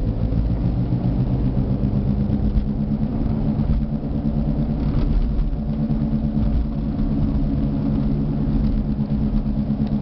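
Badly worn right front wheel bearing of a 2002 Jeep Liberty growling while the vehicle is driven, heard inside the cabin over the road and engine noise: a steady low growl with a humming tone that eases a little about four seconds in and comes back stronger. The bearing is worn out.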